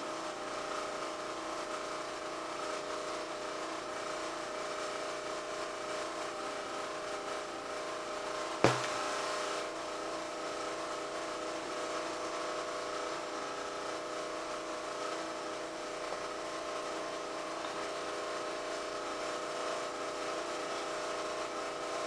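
A steady background hum with several held tones, and about nine seconds in a single sharp knock as a plastic squeeze bottle of liquid glue is set down on the table.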